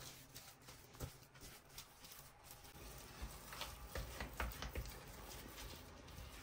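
A spatula stirring a thick coconut and sugar mixture in a metal saucepan: faint, irregular scrapes and soft knocks against the pot.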